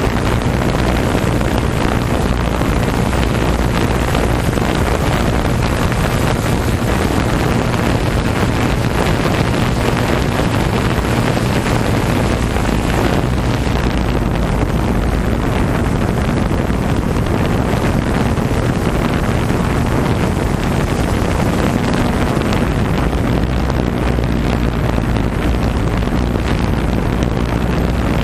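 Racing jet ski engines running steadily, a constant motor drone mixed with dense wind noise buffeting the microphone.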